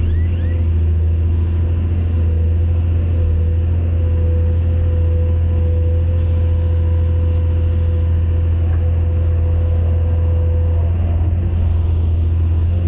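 Excavator's diesel engine running steadily: a deep, even drone with a steady whine above it, unchanging throughout.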